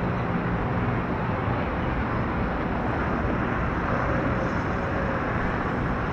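Steady noise of distant jet aircraft engines across an airfield, even and unbroken throughout.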